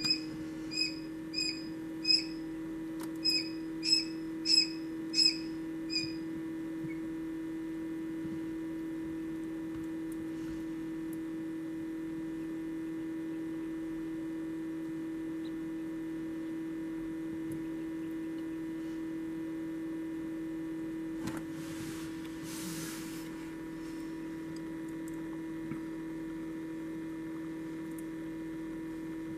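A quail chick peeping from the hatching egg: a run of short, high peeps about every half second that stops about six seconds in. Under it runs a steady electric hum, with a brief click and hiss about 21 seconds in.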